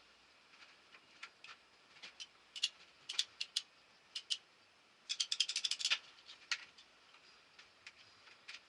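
Scattered sharp clicks from a hand tool at work, with a quick run of about a dozen ratchet-like clicks about five seconds in.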